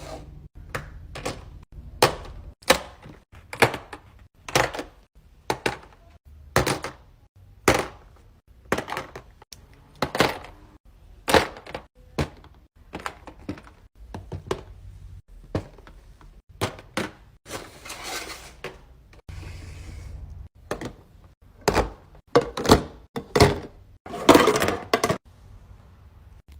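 A run of sharp clicks, knocks and snaps from fidget toys being handled, roughly one a second and coming thicker near the end.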